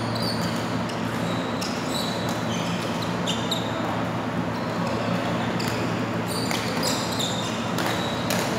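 Badminton play: court shoes squeaking in many short chirps on the court floor as players move, with sharp ticks of racket strikes on the shuttlecock. A steady low hum runs underneath.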